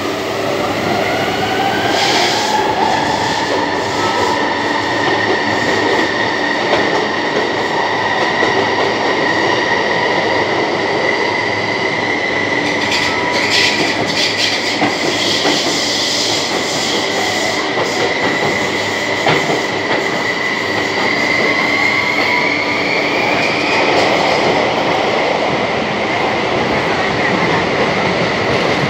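Subway train running through a tunnel, heard from on board: steady wheel-on-rail rumble with an electric motor whine that rises in pitch over the first couple of seconds as the train picks up speed, then holds steady. The whine climbs a little again about three-quarters through and drops back.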